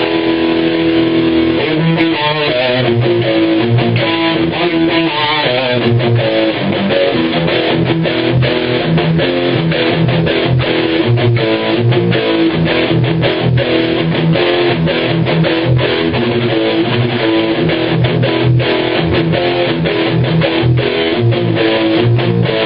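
Distorted electric guitar, an Epiphone Les Paul Custom Pro on its bridge pickup through a Blackstar HT5 amp and Marshall 1912 cabinet, playing a metal rhythm part: held, ringing notes for the first few seconds, then fast, rhythmic picked notes.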